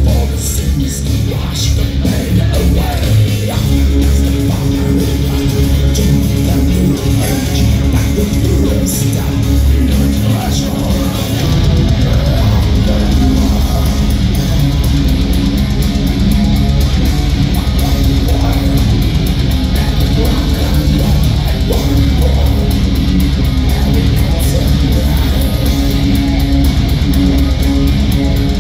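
Live heavy metal band playing loud: electric guitars, bass, keyboards and drums, heavy in the low end. About twelve seconds in, the playing becomes denser and more driving.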